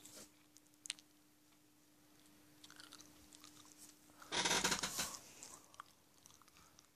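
Cardboard sheet and bedding rustling and scraping as they are handled, with a faint click about a second in and a louder scraping rush lasting about a second just after four seconds in.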